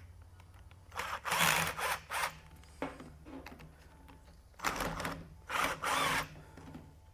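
Electric drill used as a screwdriver, run in short bursts to back out the screws of an angle grinder's motor housing: one group of bursts about a second in and another about two thirds of the way through.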